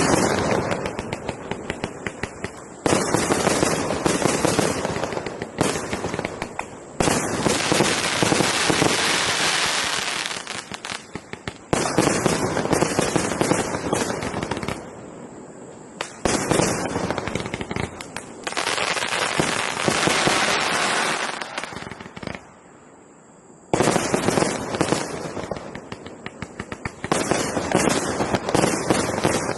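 216-shot firework banger cake firing rapid volleys of loud bangs, the reports coming in dense surges a few seconds long with short lulls between them.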